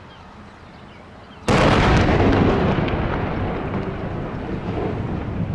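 Demolition explosive charges detonating in the smokestack of a trash incinerator: a sudden loud blast about a second and a half in, followed by a long rolling rumble that fades slowly.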